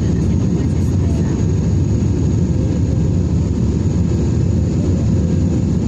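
Airliner cabin noise in flight: a steady, loud low rumble of engines and airflow with no breaks, and a faint thin high tone over it.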